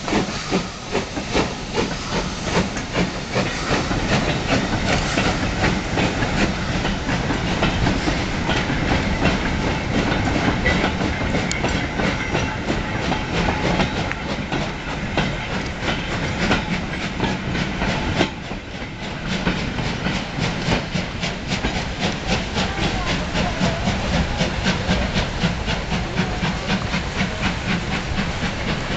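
Southern Railway U class 2-6-0 steam locomotive departing with a freight train, steam hissing from its cylinders as it passes. A long line of four-wheeled goods vans then clatters by over the rail joints in a rapid, continuous clicking.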